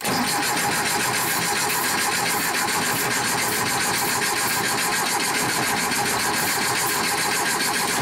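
1973 Porsche 914's air-cooled flat-four engine being cranked over steadily by its starter, an even rhythmic churning that never catches. It will not fire even with starting fluid sprayed into the throttle body, a sign the engine is not getting a usable spark.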